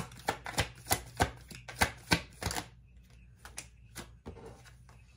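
A deck of cards being shuffled by hand: a run of sharp card clicks and taps about three a second, turning to fainter, sparser handling clicks after about two and a half seconds.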